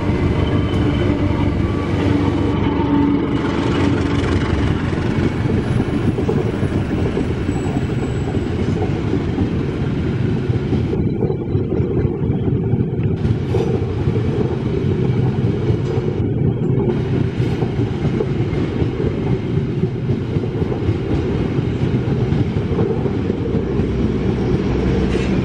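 Passenger train rolling past, its wheels clattering steadily over rail joints and switch points in a loud, continuous rumble.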